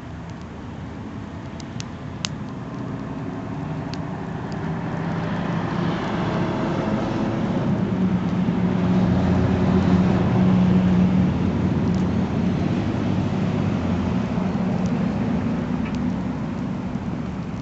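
A motor vehicle passing by: its engine hum grows slowly, is loudest about ten seconds in, then fades. A few sharp crackles from the campfire come in the first four seconds.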